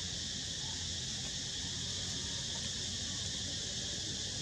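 Steady chorus of insects, a continuous high-pitched buzz that neither starts nor stops, with a low rumble underneath.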